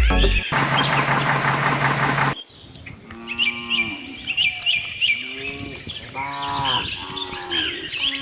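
Cattle mooing, many short calls one after another, with birds chirping above them. For about the first two seconds a steady buzz sounds, then cuts off suddenly.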